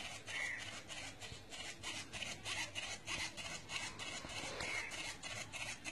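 Homemade Arduino automatic fish feeder running its feeding cycle: a faint, quick, even scraping rattle, about four or five strokes a second.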